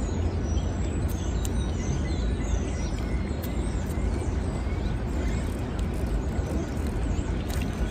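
Small birds chirping repeatedly over a steady low rumble.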